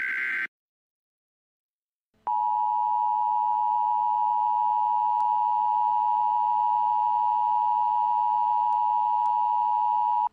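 The last burst of an Emergency Alert System header's digital data tones, a harsh warble that ends about half a second in; then, after a short silence, the EAS two-tone attention signal sounds steadily and unchanging for about eight seconds, announcing the next alert.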